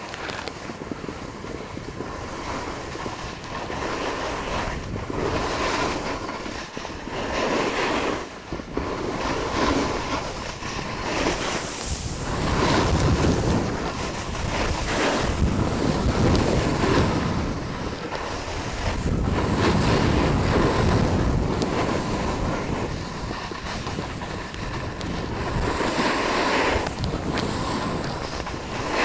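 Wind rushing over a snowboarder's headcam microphone, together with the scrape of the snowboard sliding and carving over snow, swelling and easing with the turns; the noise is loudest between about 12 and 21 seconds in.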